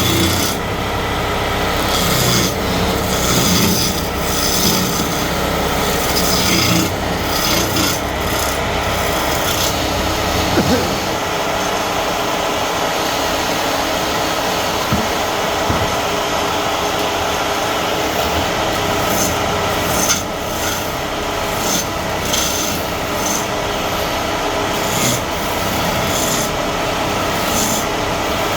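Wood being worked on a running wood lathe: a tool or abrasive rubbing steadily against the spinning workpiece over the machine's steady hum. The deeper rumble drops away about ten seconds in.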